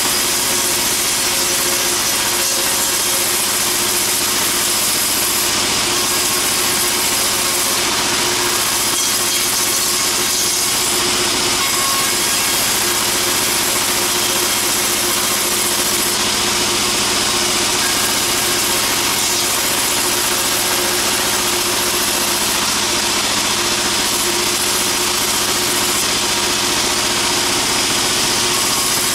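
Sawmill band saw machinery running steadily: a constant engine hum with a loud high hiss and no change in pace.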